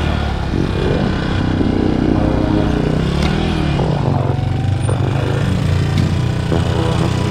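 Dirt bike engine running at low revs, its pitch rising and falling a few times with small throttle blips as the bike is ridden up a ramp onto a trailer.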